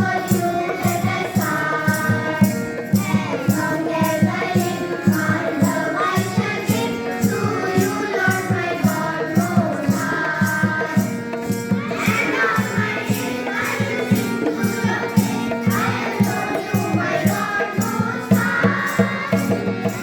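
Devotional song sung by a group of voices over a fast, even percussion beat with tambourine-like jingles.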